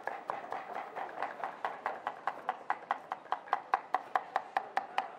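Knives chopping carrots into thin strips on a cutting board by hand, a fast, steady rhythm of about five chops a second.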